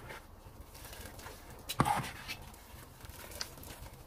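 Stainless steel skimmer scooping boiled noodle sheets out of a steel pot of broth, knocking against the pot with a sharp metal clink and a short ring about two seconds in, plus a few lighter clicks and the slosh of the broth.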